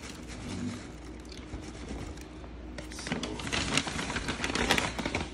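Dirt pouring from a bag into a plastic tub, with the bag rustling. About three seconds in comes a louder stretch of crinkling and rustling clicks as the bag is handled.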